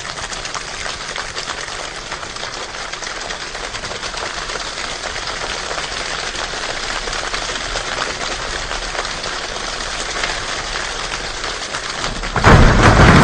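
A large choir imitating a rainstorm with body percussion, a dense patter of many small snaps and taps slowly growing louder. Near the end it jumps suddenly to a much louder, heavier crash.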